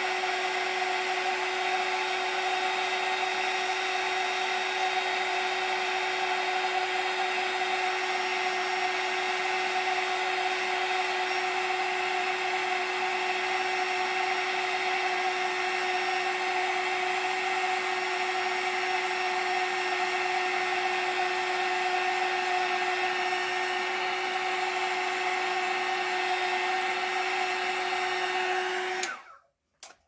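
Embossing heat gun blowing steadily with a constant motor hum while it melts embossing powder on a stamped card; it switches off about a second before the end.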